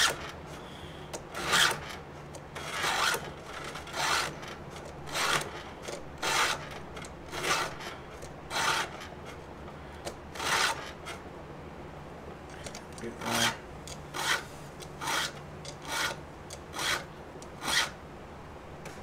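Hand file rasping across the cutting teeth of a Stihl MS 170 chainsaw chain, in short strokes about once a second with a brief pause about two-thirds of the way through. It is sharpening a chain that rocks left badly dulled and hammered.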